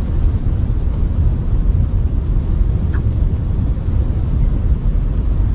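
A loud, steady low rumbling noise with no pitch, even throughout.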